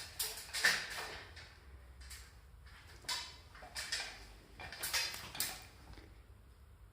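A handful of short scraping or rubbing strokes, irregularly spaced, with the loudest near the start.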